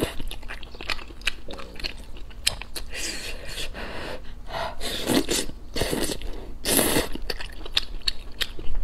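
Close-miked eating of thick noodles in a spicy sauce: wet chewing and slurping, with a few louder slurps spread through.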